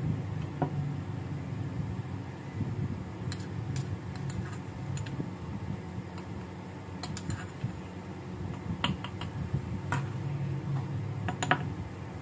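A metal spoon clinking and scraping against a marble mortar and a glass jar as crushed dry fruits are spooned out: scattered light clicks at uneven intervals over a low steady hum.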